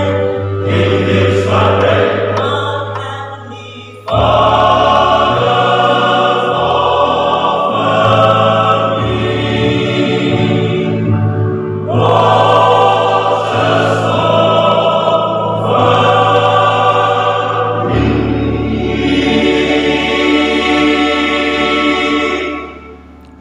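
Men's choir singing sustained chords in harmony, phrase by phrase, with a sudden loud entry about four seconds in; the last chord is held and fades out near the end.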